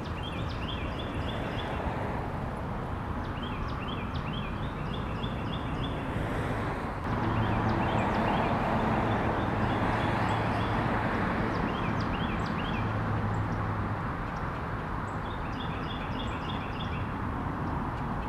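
Northern mockingbird singing: short bursts of quick, repeated high notes, a burst every few seconds. Under it runs a steady background rumble, with a low hum that is louder from about seven to fourteen seconds in.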